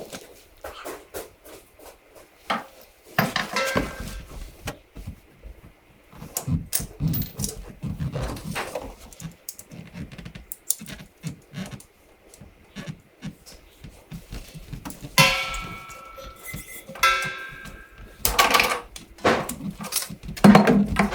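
Scattered clinks, knocks and rattles of metal parts and tools being handled during plumbing work, with a couple of brief pitched sounds near the end.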